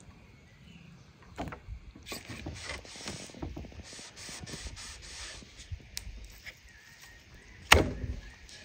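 Raw beef being handled and trimmed on a wooden chopping board: meat pulled and cut with a knife, with scattered knocks and one loud knock near the end.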